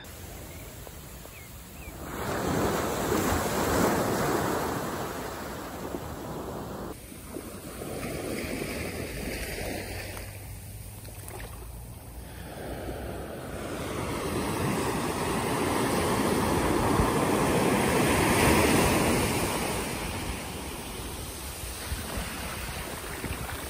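Ocean surf washing up a beach, a steady hiss that swells and recedes in slow surges, loudest a few seconds in and again past the middle, with wind on the microphone.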